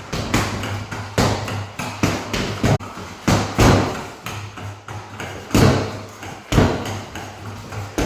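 Hard punches landing one after another, a string of sharp thuds at uneven spacing with a short pause about halfway through, over a low steady hum.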